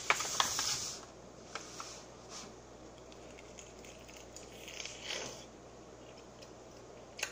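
Eating a hot-sauced fried chicken drumstick close to the microphone: a noisy burst of handling and biting in the first second, then soft wet chewing and mouth clicks, with another brief noisy burst about five seconds in.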